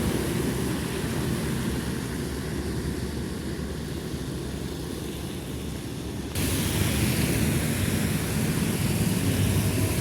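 Large trucks driving past on a wet road: a steady low rumble of engines and tyres that jumps suddenly louder about six seconds in.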